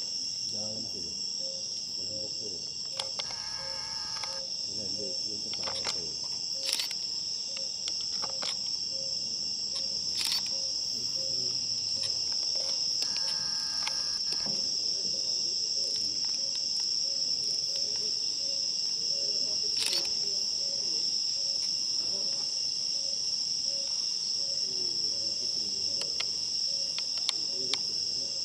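Steady, high-pitched chorus of crickets or similar night insects in the forest canopy, with a soft lower pulsing call repeating about twice a second. Two brief trilling calls cut in about three seconds and thirteen seconds in.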